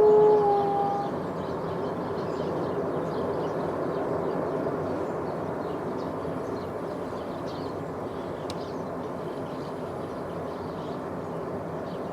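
A freight train's horn sounds a chord that cuts off about half a second in with a slight drop in pitch. The train's steady rolling rumble follows and slowly fades.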